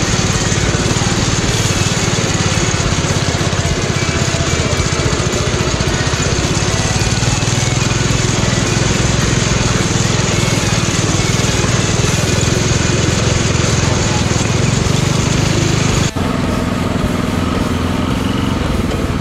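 Riding lawn mower engine running hard as the mud mower drives along an off-road trail. About sixteen seconds in the sound changes abruptly to a steadier engine note.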